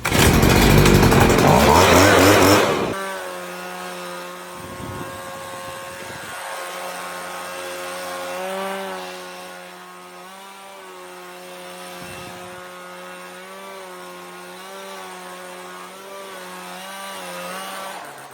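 A small motor-driven machine running: very loud and harsh for about the first three seconds, then settling to a steadier drone whose pitch rises and dips a little several times.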